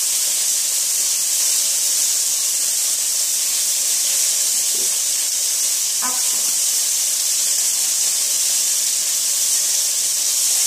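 Small pieces of chicken breast frying in oil in a pan: a steady, even sizzle as they brown.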